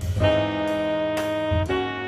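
Background instrumental music with long held melody notes over a steady low accompaniment; the note changes twice.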